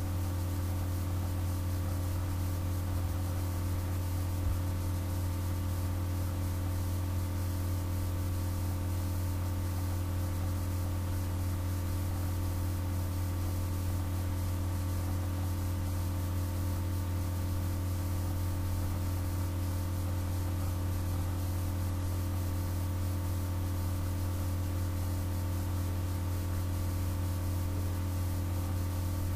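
Steady low electrical hum with a faint hiss, the recording's background noise, and no other sound.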